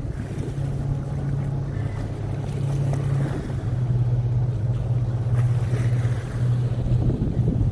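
A large engine running steadily with a low hum whose pitch shifts slightly about three and a half seconds in, with wind rushing over the microphone.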